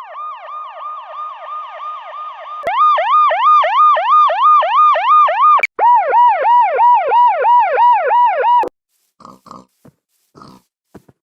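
Police car siren sound effect in a fast yelp, sweeping up and down about three times a second. It is played in three versions back to back, each about three seconds long: the first quieter, the second louder and higher, the third lower. It cuts off abruptly, and a few short scattered blips follow.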